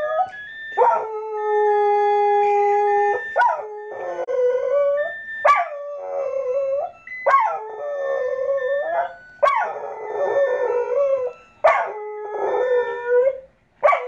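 Australian kelpie howling along to a washing machine's end-of-cycle chime tune: a string of about six long howls, each starting with a sharp rise and settling into a held, wavering note, with the chime's electronic tones faintly behind.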